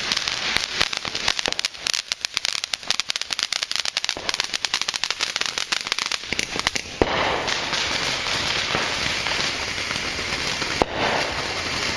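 Firework crackling with a rapid, dense string of sharp pops for about seven seconds, then changing to a steady hissing spray.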